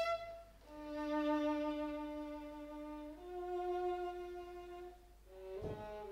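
Muted viola playing slow, soft held notes, each a couple of seconds long, that step upward in pitch, with a brief knock about five and a half seconds in.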